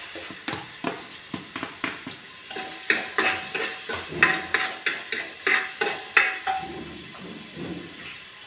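Chopped onions going into hot oil in a pressure cooker and stirred with a metal spoon: a quick run of scrapes and knocks of the spoon against the pot. Several strokes ring with a short tone from the metal, over a faint sizzle.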